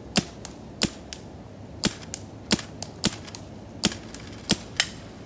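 Empire Axe 2.0 paintball marker firing single shots in semi-auto, about seven sharp pops spaced unevenly under a second apart. Each pop is followed a fraction of a second later by a fainter click.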